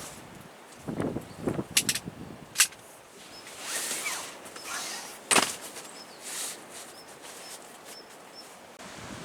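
A few sharp clicks and soft knocks, as of objects being handled, with a faint high chirp repeating in the background.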